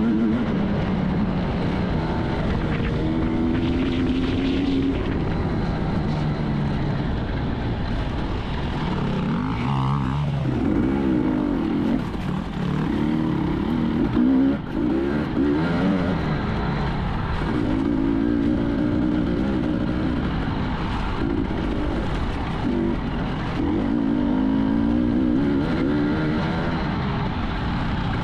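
Enduro motorcycle engine being ridden hard off-road, its pitch repeatedly rising and falling with throttle and gear changes, over a steady noisy rumble.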